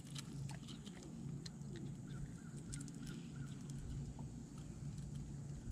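Scattered small clicks and taps as a hooked bass is handled and the hook worked at, over a low steady hum.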